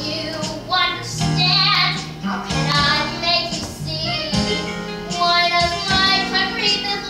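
A child singing a solo song over instrumental accompaniment with held low notes.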